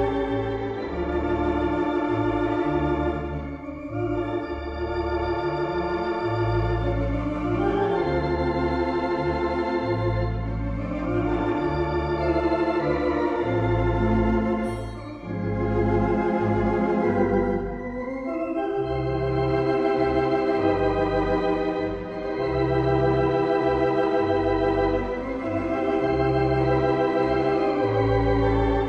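Organ music: a melody and sustained chords over a bass line whose notes change about once a second.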